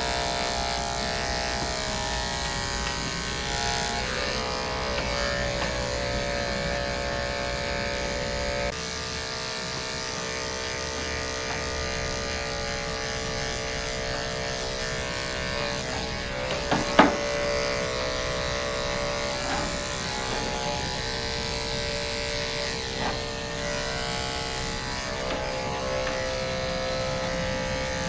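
Electric dog grooming clippers buzzing steadily, with a sharp knock about two-thirds of the way through.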